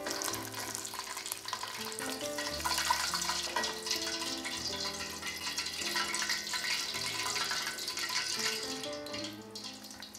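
Taquitos deep-frying in hot vegetable oil, a steady sizzle as pieces are lifted out and added with metal tongs, under background music with held notes.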